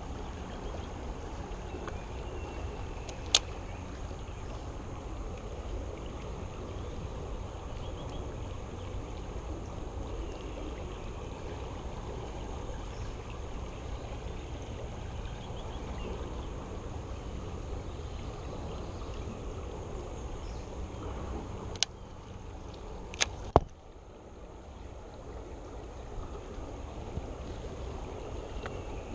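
Steady rush of flowing creek water. There is a sharp click a few seconds in and three more close together about three-quarters of the way through, after which the sound is a little quieter.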